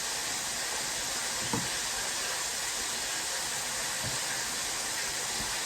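Chicken frying in a pan of hot oil, a steady sizzle.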